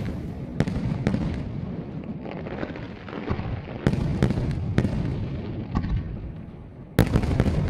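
Aerial firework shells bursting in a display: a series of sharp bangs over a continuous low rumble, the loudest bang near the end.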